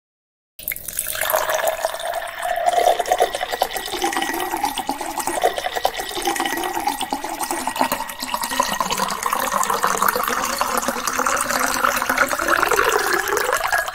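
Water pouring in a steady stream into a glass bowl, starting about half a second in. Its ringing note rises slowly as the bowl fills.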